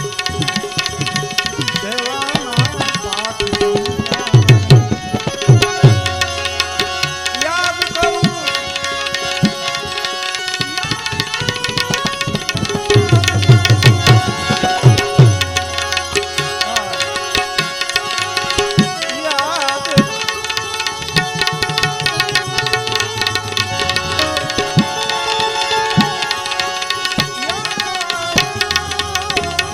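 Instrumental passage of Gujarati santvani devotional music: tabla played with dense, fast strokes and deep sliding bass strokes, over steady held notes from an accompanying melodic instrument.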